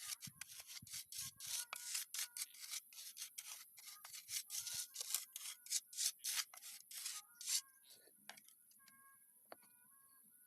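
Rhythmic scraping strokes of a hand tool over gritty ground, about three a second, that stop a little before eight seconds in. A steady high hiss runs underneath.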